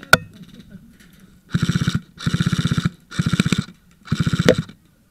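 Airsoft electric gun firing four short full-auto bursts of rapid, evenly spaced shots, each about half a second long, after a single sharp click near the start.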